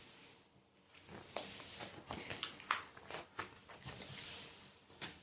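Clear plastic sleeve pages of a ring binder rustling and crinkling as a page is turned, with a run of sharp crackles and clicks about one to three seconds in.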